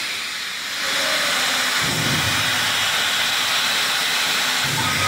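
CNC plasma cutting table's plasma torch cutting steel plate: a steady hiss of the arc and its air jet, with a low hum underneath from about two seconds in.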